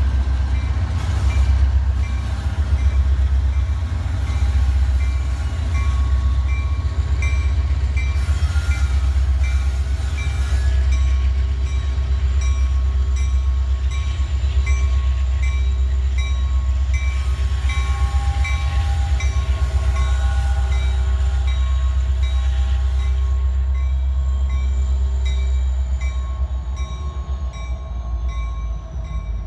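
A train rolling past with a heavy, steady low rumble, faint high ringing tones from the wheels and rails over it, and a light, regular clicking about twice a second.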